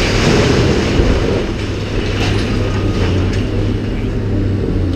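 A brick wall section collapsing as a tracked excavator pulls it down: a rumble of falling masonry and debris, heaviest in the first second, over the steady running of the excavator's diesel engine, with scattered knocks of debris afterwards.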